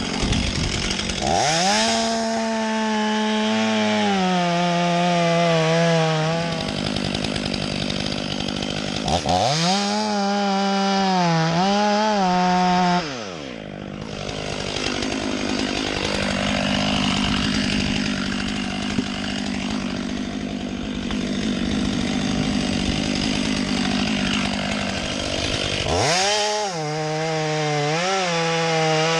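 Chainsaw running at full throttle in three long spells, its pitch dipping briefly now and then, and dropping back to a lower running sound between them.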